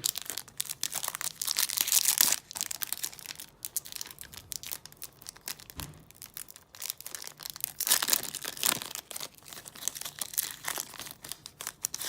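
Foil wrapper of a Yu-Gi-Oh booster pack crinkling and tearing as it is opened. The dense crackle swells about two seconds in and again around eight seconds.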